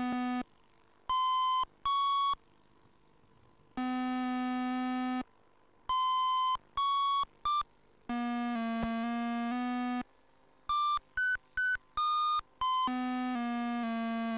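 Electronic synthesizer music: long held low chords alternate with short, beep-like high notes, separated by sudden silent gaps.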